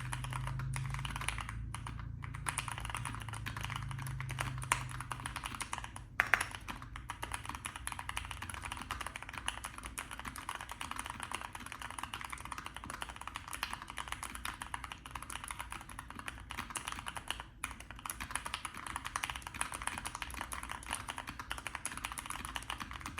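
Continuous fast typing on a Keychron Q1v2 mechanical keyboard with Gateron Black linear switches and a tape mod: a dense stream of keystroke clacks, with a louder strike about six seconds in and a couple of brief pauses.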